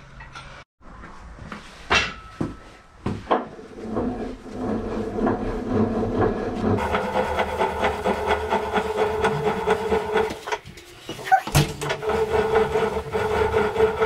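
Hand crank on a 1964 Bridgeport turret milling machine being wound, its gearing grinding and rasping in a steady rhythm. The winding stops briefly about ten and a half seconds in and then starts again. A few metal knocks and clunks come in the first few seconds.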